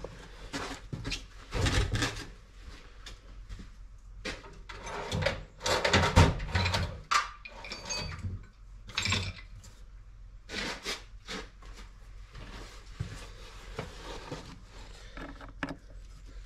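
Hand-tool handling on a wooden workbench: a screwdriver and small metal carburetor parts being picked up, set down and worked, giving scattered clicks, knocks and rubbing. The loudest knocks come about 2 seconds and about 6 seconds in.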